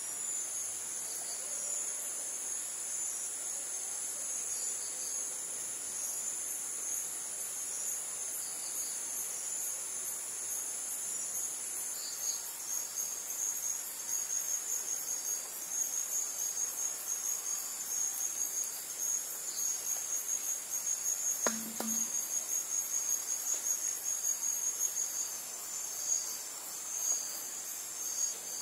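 Insects keeping up a steady high-pitched trill, joined about halfway through by a fast, evenly pulsed chirping. A single short falling sound comes about two-thirds of the way in.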